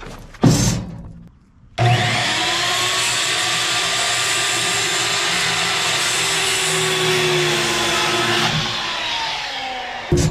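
A sharp knock, then an electric power tool, likely a saw, starts about two seconds in and runs loud and steady under load for about seven seconds, its motor whine dipping slightly, before it is switched off and winds down with a falling whine near the end.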